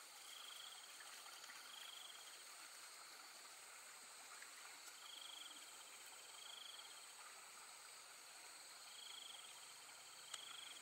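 Faint chorus of calling wildlife: a steady high drone with short buzzy trills in pairs, repeating about every four seconds, and a single click near the end.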